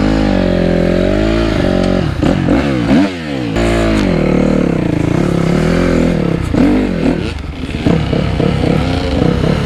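Honda CRF250R four-stroke single-cylinder dirt bike engine revving up and down while ridden slowly, with a brief drop in revs about three seconds in. Other dirt bike engines run close by in the second half.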